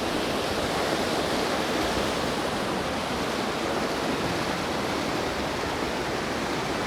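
Steady rushing of creek water spilling over rock slides and small falls.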